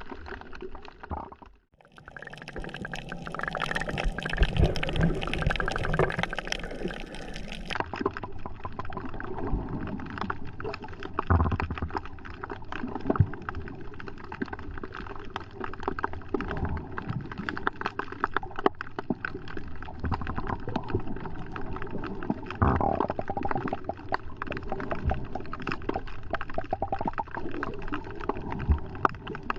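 Water sloshing and gurgling around a GoPro, with a dense crackle of small clicks throughout. The sound changes character at cuts about two and eight seconds in.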